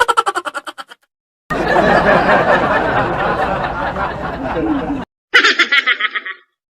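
A string of laughing sound effects: a quick snickering laugh in rapid pulses that fades out within a second, then about three and a half seconds of a denser, noisier burst of laughter, then a short, higher-pitched giggle near the end.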